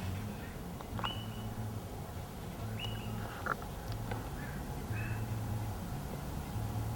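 Short high bird chirps, one every second or two, over a low steady hum that swells and fades in stretches.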